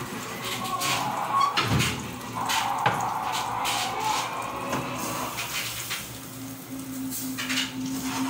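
Cookware being handled: a pot and its lid, a plate and a frying pan clatter with a string of clinks and knocks, over some running water.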